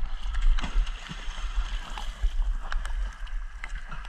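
Shallow seawater sloshing and splashing around people wading, with a steady low rumble and a few brief sharp splashes.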